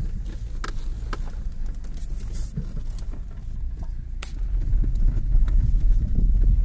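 Road rumble inside a car driving on a dirt farm track, with a few sharp knocks and rattles. The low rumble grows louder about four seconds in.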